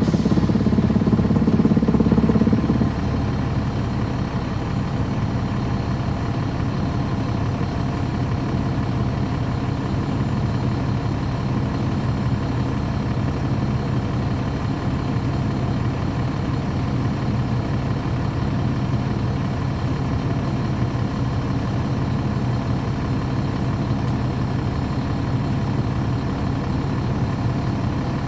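Caterpillar C13 ACERT diesel engine of a 2009 NABI 416.15 (40-SFW) transit bus, heard from on board. It is louder for about the first three seconds, then settles into a steady, even run.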